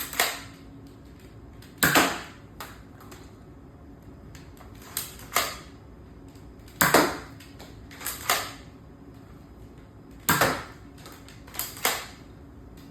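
Nerf blaster firing foam darts: a string of sharp pops and clacks, often in quick pairs a fraction of a second apart, every couple of seconds, the blaster's shot and the dart striking the target.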